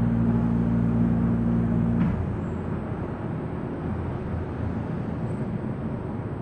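A steady low mechanical hum stops suddenly about two seconds in, leaving a steady rushing background noise.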